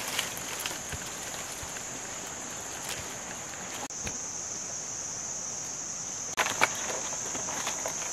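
Insects keep up a steady high-pitched drone, with scattered clicks of rustling and a short cluster of loud crackles about six and a half seconds in.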